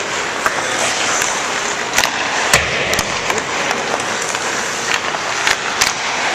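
Ice hockey rink practice sounds: a steady hiss of skates on the ice with sharp knocks and clacks of pucks, sticks and pads every second or so, and a heavier thump about two and a half seconds in.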